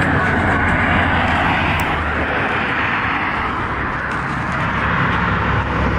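Steady rushing noise of road traffic, easing a little about four seconds in.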